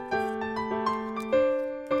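Background music: a keyboard tune of sustained chords and melody notes, a new note or chord struck about every half second.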